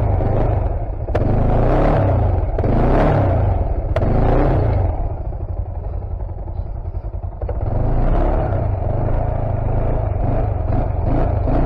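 A stuck ATV's engine revving in repeated surges as the machine tries to climb out of deep mud; it drops to a lower, quieter run for a couple of seconds in the middle, then revs hard again.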